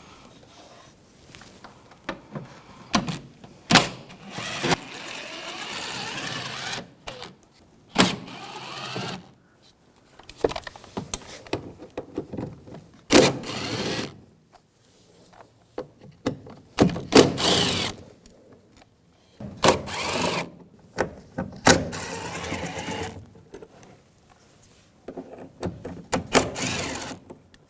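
A power driver with a T30 socket spinning out the door panel screws in a series of short runs of one to two seconds each, with a thin high whine, separated by sharp clicks and knocks as screws and tool are handled.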